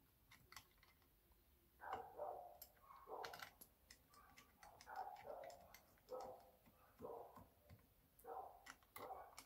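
Faint small ticks and clicks of tiny Allen-head screws being threaded by hand into a metal handlebar clamp, with a muffled sound recurring about once a second from about two seconds in.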